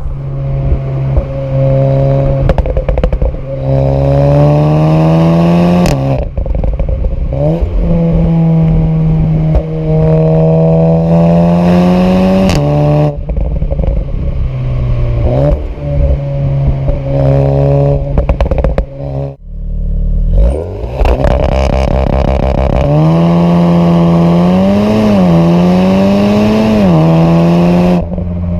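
Volkswagen Golf R Mk7.5's turbocharged 2.0-litre four-cylinder engine pulling hard through the gears. The pitch climbs slowly and then drops sharply at each quick upshift, four or five times, with some crackle from the exhaust.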